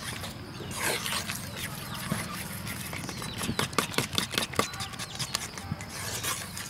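A metal fork stirring thick flour-and-egg batter in a stainless steel bowl: wet squelching with quick clicks of the fork against the bowl, coming thickest around the middle.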